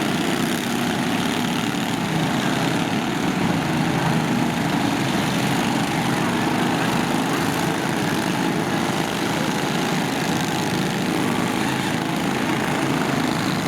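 Lawn tractor engines running together in a steady, mixed engine drone.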